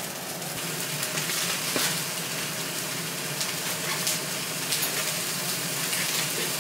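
Food sizzling in a hot frying pan: a steady hiss with scattered small crackles.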